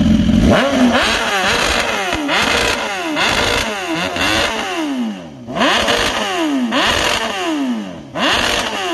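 BMW S1000RR inline-four superbike engine revved over and over while the bike stands still: quick throttle blips about once a second, the pitch shooting up and falling back each time.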